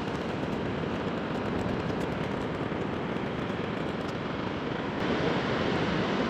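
Sea surf washing onto the beach, a steady rush of waves with wind on the microphone, swelling a little about five seconds in.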